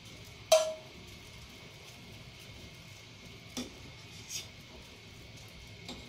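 A metal spoon strikes a stainless steel bowl once with a bright ringing clink, then taps twice more softly, as foam is skimmed off boiling stock. A steady faint hiss of the simmering pot lies beneath.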